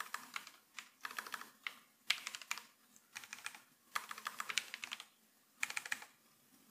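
Typing on a computer keyboard in about six short bursts of rapid key clicks, with brief pauses between them.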